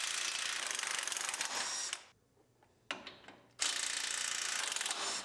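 Cordless impact wrench hammering in two bursts of about two seconds each, with a short pause between, as it loosens the bolts that hold the steering gearbox to the frame rail.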